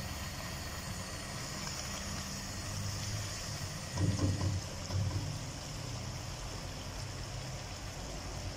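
Mutton simmering down in a wok on a gas stove as its last liquid is boiled off: a steady low hum under a high sizzling hiss. A silicone spatula stirs the meat, with a couple of louder scrapes around four and five seconds in.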